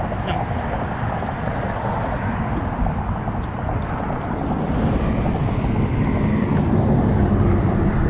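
Steady wind rumbling on the microphone, a low even noise with a few faint clicks.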